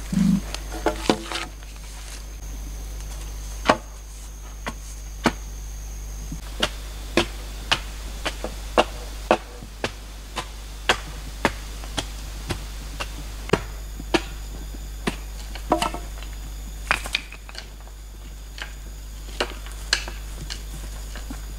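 Repeated sharp knocks on bamboo, irregular at roughly one to two a second, as bamboo is chopped and struck while setting posts.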